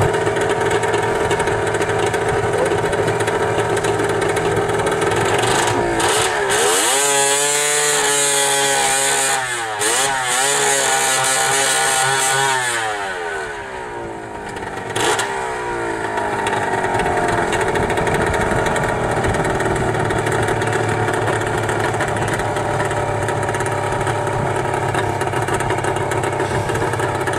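Snowmobile engine idling, revved up and down several times in the middle, then settling back to a steady idle.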